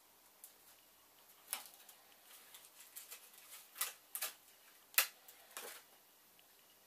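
A few irregular light clicks and taps, the sharpest about five seconds in, with small rustling scrapes between them.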